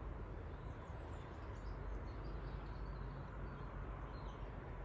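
Outdoor ambience: a steady low rumble of wind on the microphone, with faint high bird chirps scattered through the middle.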